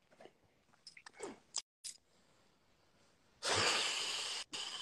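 Faint scattered mouth clicks and small rustles, then about three and a half seconds in a loud steady hiss cuts in as a second caller's audio joins the phone live stream, dropping off somewhat near the end.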